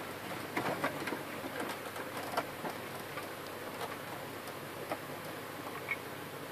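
Exposed motor of an opened HP LaserJet 1300 laser printer spinning with a steady low whir, with irregular light ticks and scrapes that come thickest in the first few seconds.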